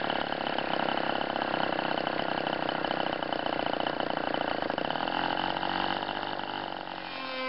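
Small glow-fuel model-aircraft engine buzzing steadily in flight, its pitch drifting a little and the sound easing slightly near the end.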